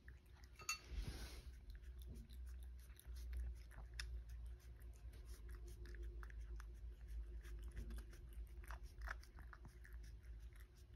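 A domestic cat licking a small plastic food cup clean: a quick, uneven run of faint wet tongue clicks over a low steady hum.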